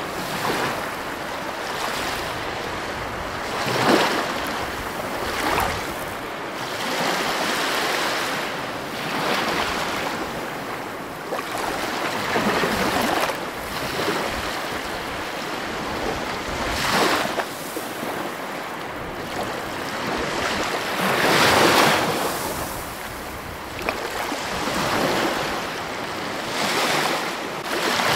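Sea surf breaking and washing over rocks, a wave surging in about every four seconds over a steady rush of foam.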